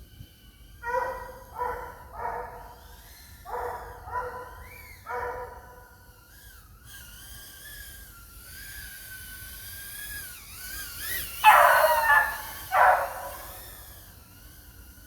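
Dog barking: six short barks in the first five seconds, then two louder, harsher barks about twelve seconds in. A thin, high whine wavers in pitch between them.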